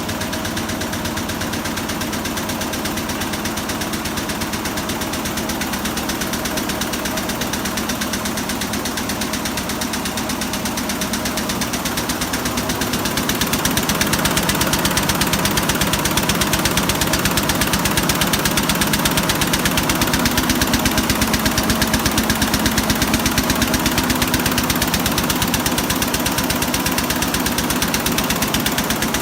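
Richpeace 1000 rpm multi-needle quilting machine running, a rapid, even clatter of needle strokes that gets louder about halfway through.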